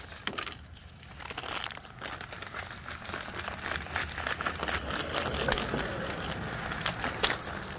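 Footsteps crunching and rustling through fallen leaves and grass, a dense crackle that grows busier and louder after the first few seconds.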